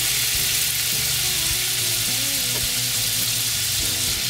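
A stick of butter sizzling steadily as it melts and bubbles in a hot metal pot.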